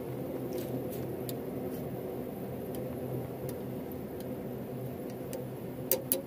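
Wooden chopsticks stirring corn soup in an aluminium pot, giving light scattered ticks as they knock against the pot, and two louder taps close together near the end. A steady low hum runs under it.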